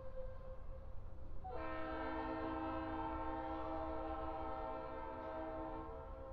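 Locomotive air horn sounding one long, steady multi-note chord. It starts suddenly about a second and a half in and holds to near the end.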